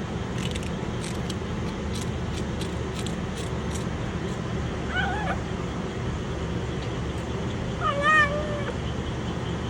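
Stray kitten meowing twice: a short meow about five seconds in and a longer, louder one near eight seconds. It seems hungry, not having eaten since leaving its mother. Scattered faint clicks and a steady low rumble run underneath.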